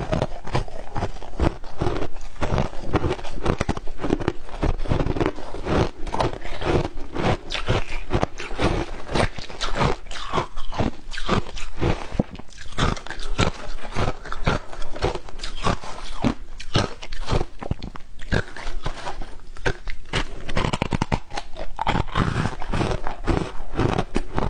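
Close-miked crunching and chewing of matcha-topped shaved ice: a dense, continuous run of crisp crackles as the ice is bitten and broken between the teeth.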